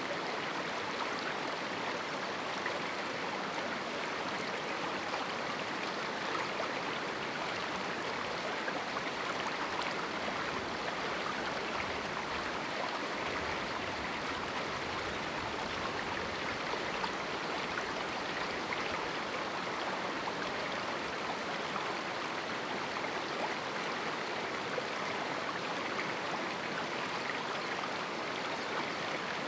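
River water rushing steadily over rocks in a small canyon, a constant even rush with no breaks.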